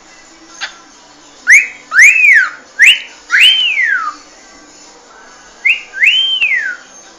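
Cockatiel whistling: six clear whistled notes in two phrases, four and then two, each rising and then sliding down in pitch.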